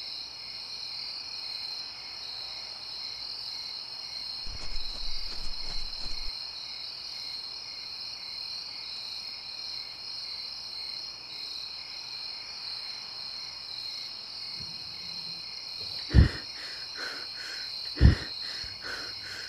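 Night ambience of crickets chirring steadily, with a brief low rumble about five seconds in and two sharp, loud thumps near the end.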